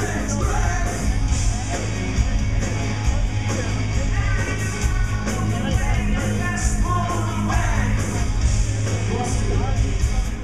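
Live rock band playing loudly, with electric guitars, bass guitar and a drum kit with cymbals.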